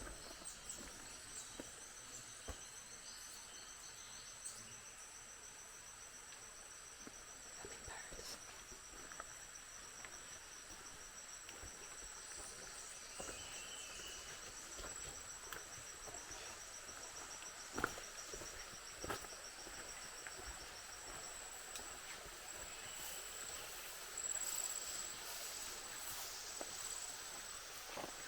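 Lowland rainforest insect chorus: steady high-pitched insect calls, one of them a rapid pulsing trill that stops about two thirds of the way through, with a few scattered faint clicks.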